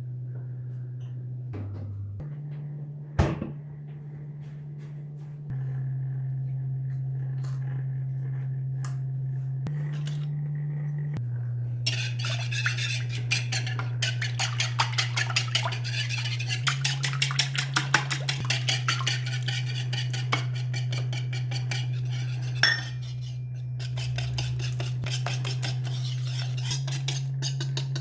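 A utensil beating rapidly against a mixing bowl, a fast run of clinks about four or five a second, which starts about halfway through and pauses briefly near the end. A single knock of dishware comes early on, under a soft low drone that changes note every few seconds.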